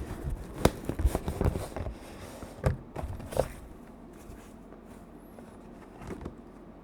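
Hands handling the packaging of a mechanical keyboard: scraping and rustling with a few sharp knocks in the first three or four seconds. It then turns quieter, with one soft knock near the end.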